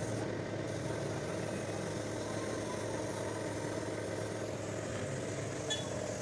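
A motor running steadily with an even, unchanging hum.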